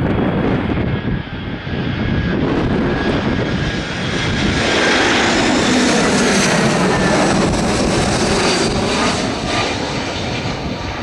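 Airbus A319-112's CFM56 turbofan engines on final approach, swelling as the jet closes in and passes, loudest about halfway through, with sweeping tones as it goes by. A thin steady whine sits over the noise at the start.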